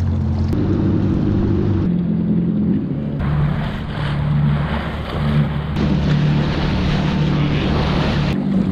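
Yamaha WaveRunner jet skis running across choppy lake water: a steady engine drone that shifts in pitch, with water splashing and wind buffeting the microphone. The sound jumps abruptly a few times.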